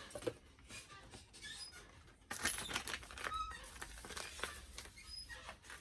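Crinkling and clicking of plastic and cardboard packaging being handled as the parts of a doll stand are taken out of a toy box, with scattered clicks at first and a denser crackle from a couple of seconds in.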